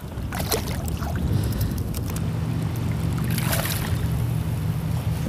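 A hooked fish thrashing and splashing at the surface beside a kayak, loudest about three and a half seconds in, over a steady low motor hum.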